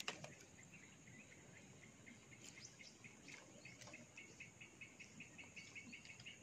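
Near silence with an insect chirping faintly and rhythmically, about five short chirps a second, becoming steadier from about a second and a half in; a few faint clicks.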